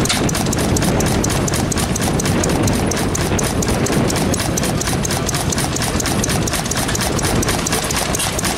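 Sendling single-cylinder stationary engine running steadily, its open valve gear clattering in a fast, even run of clicks.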